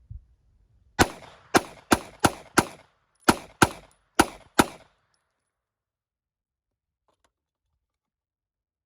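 Nine gunshots fired in quick succession, a run of five then, after a short pause, four more, each with a short echoing tail.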